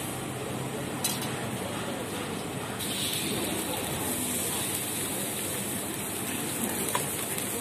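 Gas wok burner hissing steadily under a wok of hot oil, with the oil sizzling. A sharp metal clink about a second in and another near the end.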